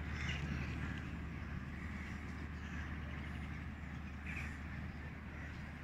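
Scattered short, high animal calls, several in a few seconds, over a steady low hum.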